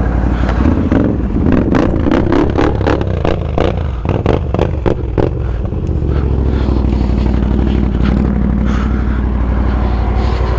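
An ATV engine running while, for several seconds, a quick run of scraping and clattering knocks sounds out, as of the machine crawling over rough ground and brushing against branches. After about six seconds the knocks stop and the engine settles back to a steady idle.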